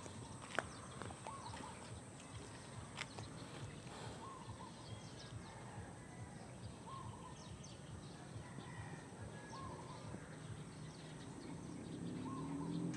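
Outdoor background with a bird repeating a short, wavering call every couple of seconds and faint scattered ticks. A low engine hum comes up near the end.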